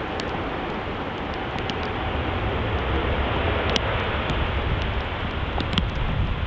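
Boeing 777 jet airliner's engines at high thrust as it rolls down a soaked runway on its takeoff run, a steady jet rumble mixed with the hiss of spray. Rain and wind hit the microphone, with scattered ticks of drops.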